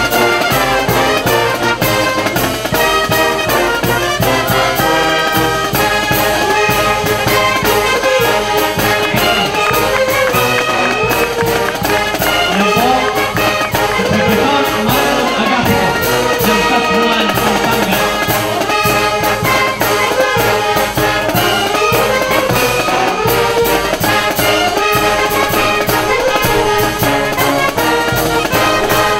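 Marching brass band playing: trumpets, trombones, saxophones, clarinets and sousaphones over a steady drum beat.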